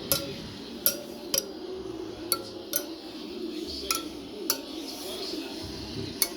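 Metal spokes of a dirt-bike wheel being tapped one after another, about eight sharp metallic pings at uneven intervals over a steady low hum. Each ping tests spoke tension: a tight spoke should ring out, a loose one sounds dull.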